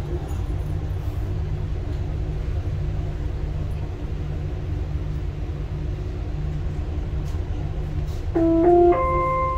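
Dubai Metro train running, a steady low rumble with a faint hum inside the carriage. Near the end an onboard chime sounds, a few clear notes stepping upward, the signal that a passenger announcement is coming.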